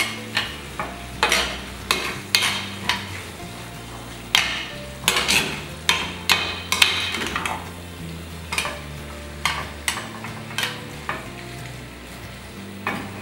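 Slotted stainless steel spoon scraping and knocking against a stainless steel skillet as a tuna, tomato and onion mixture is stirred, with the food frying underneath. The strokes come irregularly, busiest around the middle and thinning out near the end.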